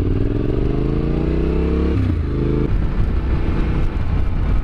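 Yamaha Ténéré 700's parallel-twin engine accelerating, its pitch rising for about two seconds, then falling sharply at an upshift and running on at lower revs.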